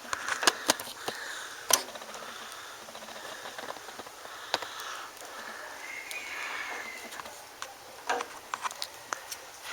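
Handling noise from a handheld camera: scattered sharp clicks and light taps, with soft breathing or sniffing between them.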